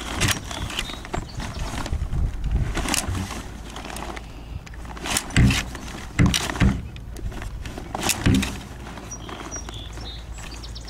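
Irregular clicks and knocks of sail slides being fed onto the metal track under a wooden gaff, with a few louder thumps in the middle.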